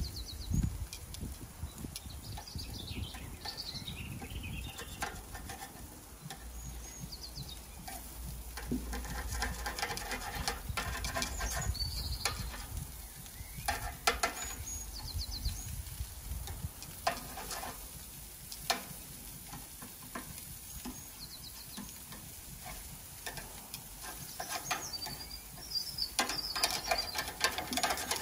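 Burgers and sausages sizzling on a gas barbecue grill, with metal tongs clicking against the grate a few times in the middle. Birds chirp now and then.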